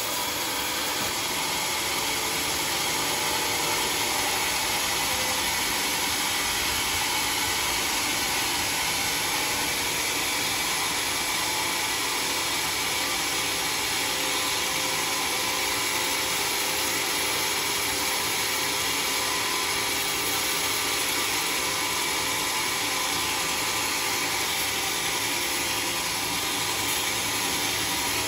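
Homemade band sawmill running steadily, its blade sawing lengthwise through a log.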